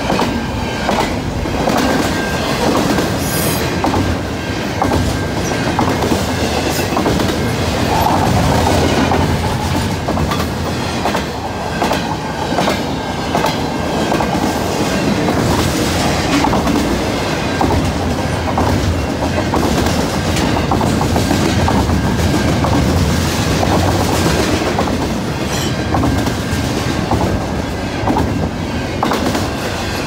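Double-stack intermodal freight train's container well cars rolling steadily past close by, steel wheels clicking over rail joints, with a faint, steady high squeal from the wheels.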